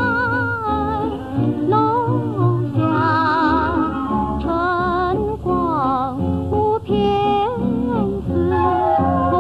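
A 1940s Mandarin popular song: a woman singing a slow melody with vibrato over instrumental accompaniment.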